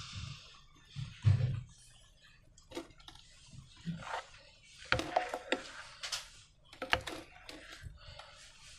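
Slime and rubber balloons being handled close up: an irregular string of small sticky clicks, crackles and squelches with short quiet gaps, the sharpest clicks about five and seven seconds in.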